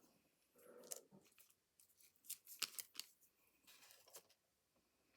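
Faint handling of paper and small craft pieces: a scatter of soft rustles and short, sharp clicks.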